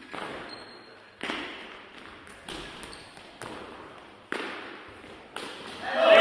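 Kicking shuttlecock being struck back and forth by the players' feet during a rally. It makes a sharp tap roughly every second, each one ringing out in the hall's echo. Voices rise near the end.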